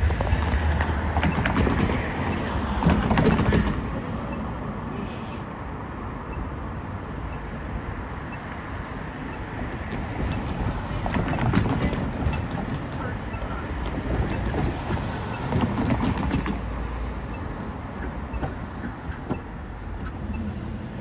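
Street traffic: cars driving past, the noise swelling as each one goes by, loudest in the first few seconds and again twice later on.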